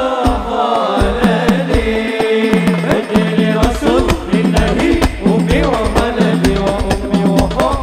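Sholawat sung live: a man's amplified solo voice holding long, wavering lines, over hadrah drums and a repeating low accompaniment figure.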